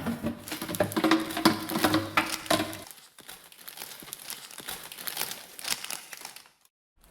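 Crinkling and rustling of a thin material such as paper or plastic, full of small clicks. It is loudest over the first three seconds, with a low hum beneath, then goes on more softly and stops near the end.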